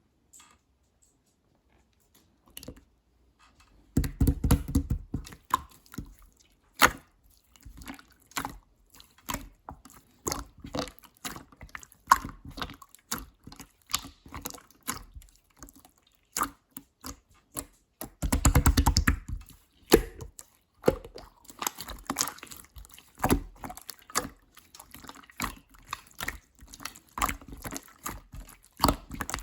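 Clear slime being squished and pulled by hand, making a run of irregular wet clicks and pops. Two longer crackling squelches come about four seconds in and again about eighteen seconds in.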